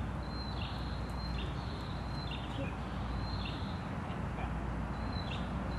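A bird calling again and again, each call a high thin note that drops into a shorter, lower note, over a steady low background noise.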